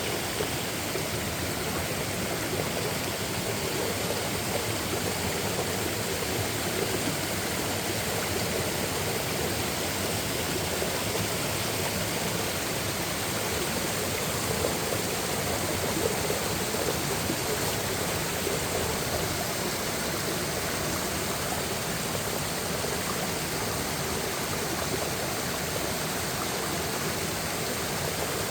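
Mountain stream rushing over rocks and small falls, a steady, even water noise.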